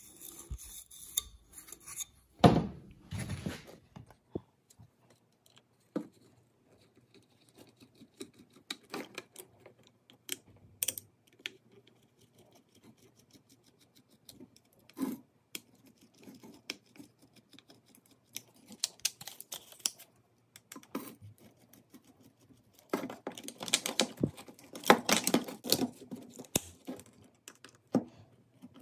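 Scattered clicks, taps and rattles of a torn-down spotlight's yellow plastic housing and metal reflector being handled on a wooden workbench, with a louder clatter about two and a half seconds in and a busy stretch of handling noise near the end.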